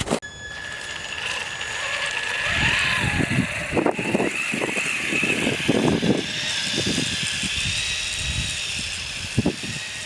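Electric RC truck running on tracks through snow: the Titan 12T 550 motor and gearbox whine, the pitch wavering with the throttle, over an irregular crunching of the tracks in the snow.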